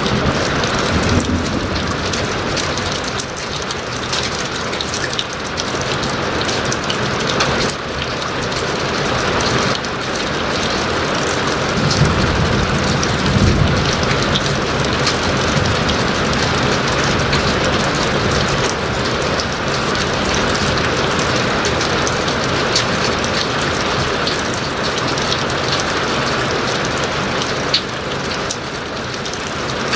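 Steady heavy rain falling, with a low rumble of thunder about twelve seconds in.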